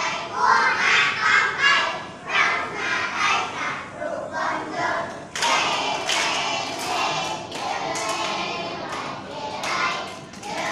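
A group of young children chanting together in rhythm. About halfway through, rhythmic hand clapping joins in.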